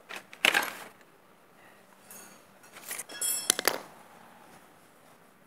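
Small metal tool and part handling: a quick cluster of sharp clicks about half a second in, then a second run of clinks and clatter with a bright metallic ring from about two to nearly four seconds in.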